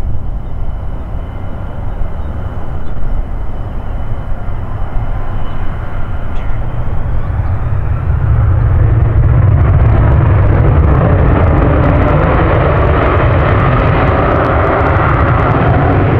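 The Lockheed ER-2's single General Electric F118 turbofan running up, its roar swelling about halfway through and staying loud as the aircraft starts its takeoff roll.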